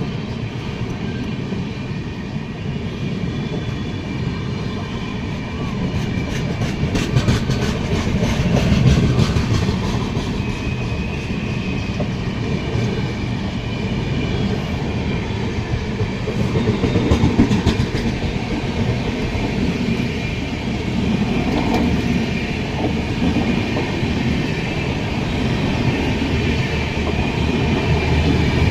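Train wheels running along the track, a steady rumble with rhythmic clickety-clack over the rail joints.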